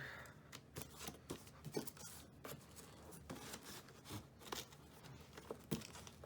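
Cardboard shipping box and its packing being handled and opened by hand: scattered faint clicks, scrapes and rustles at irregular times.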